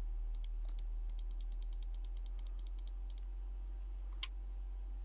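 A low, steady sine test tone from subwoofers, with a quick run of light clicks, about seven a second, for some three seconds, and one more click near the end.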